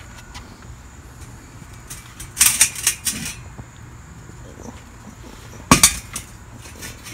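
Two short bursts of metal clinking and clattering, about two and a half seconds in and again near six seconds, from a steel charcoal chimney starter full of burning coals being handled, the coals stirred up enough to throw sparks.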